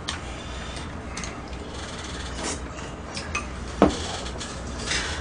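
Chopsticks tapping and clinking against bowls and a serving plate, a few separate knocks with the loudest about four seconds in. A low steady hum runs underneath.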